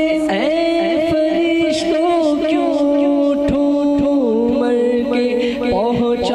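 Unaccompanied devotional singing of an Urdu naat: a steady held drone with a lead male voice singing a winding, ornamented line over it. The drone drops in pitch about four seconds in.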